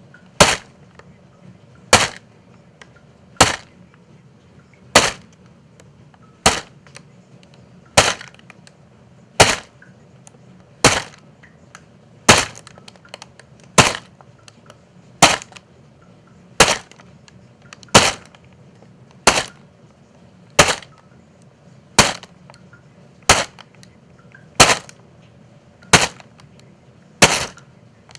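Footsteps crunching through dry leaves at a slow, even walking pace, one sharp crunch about every second and a half.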